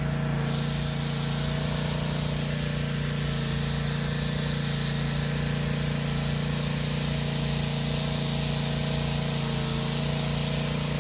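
Pressure washer spraying hot water into the air in a steady hiss that starts within the first half second, with the steady hum of the machine's motor underneath.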